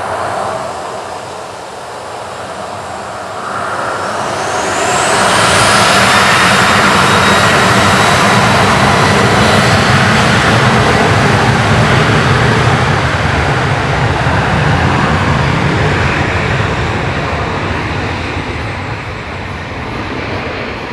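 Jet engines of a Garuda Indonesia Boeing 737-800 at takeoff power: the roar builds over the first few seconds with a rising whine, stays loud through the middle, then slowly fades as the airliner moves away.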